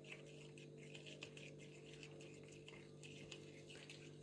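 Faint, irregular sticky clicks and squishes of white glue with red colouring being stirred by hand, over a steady low hum.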